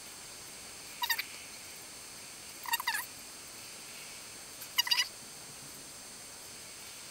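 Three short, high-pitched animal calls about two seconds apart, each a quick cluster of notes, over a steady faint hiss.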